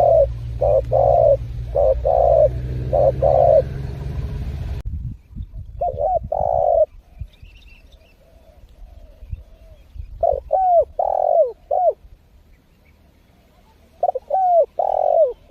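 Spotted dove cooing in repeated phrases of several coos each. The coos come close together over a low hum for the first five seconds. After that the hum stops, and phrases come about every four seconds with quiet between them.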